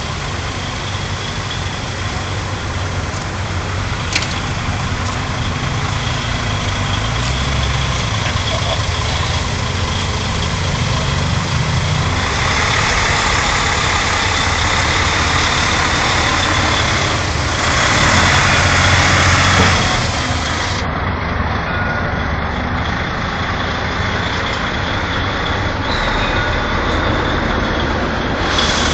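Heavy lorries' diesel engines running as they roll slowly past, hauling boats on low trailers. Past the middle a louder rush of noise rises for a couple of seconds, then falls back.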